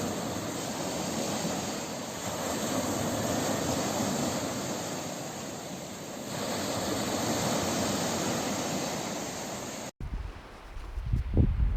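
Ocean surf washing steadily, swelling and easing twice as waves come in. Near the end it cuts off suddenly into a deep, low rumbling surge, the loudest moment.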